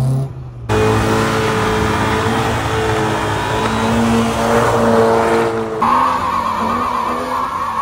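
Car engines revving hard and held at high revs while the rear tyres spin and squeal in burnouts. The sound changes abruptly about a second in and again near six seconds, and in the last part a tyre squeal runs over the engine.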